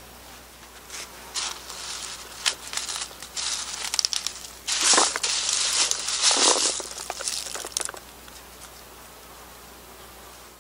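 Yellow plastic mesh net bags of live snails being opened and shaken out into a styrofoam box: crinkling of the netting with crackling clatter of snail shells. It comes in a run of rustles from about a second in, is loudest in the middle, and stops about three-quarters of the way through.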